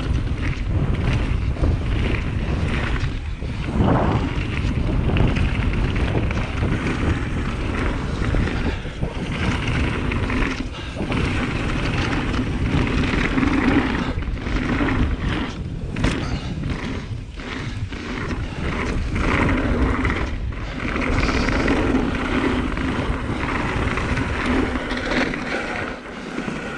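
Mountain bike riding fast down a dirt trail: a steady rumble of tyres on the ground and wind buffeting the microphone, with frequent sharp knocks and rattles as the bike hits roots and rocks.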